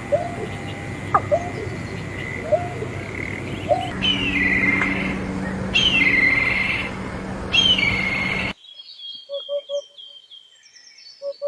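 Bird calls in three short segments cut one after another: first repeated short upward-sweeping calls, then louder falling calls over a steady hum, then rapid high chirps with short low pulses against a silent background.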